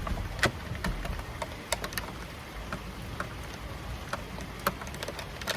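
Scattered, irregular clicks and taps over a low steady rumble.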